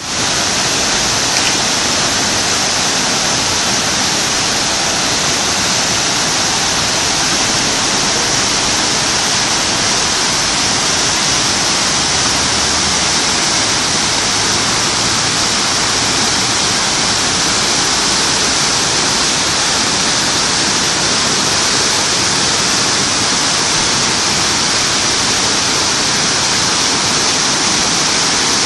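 Waterfall on a mountain creek: a loud, steady rush of falling water that holds even throughout, with the most hiss in the upper range.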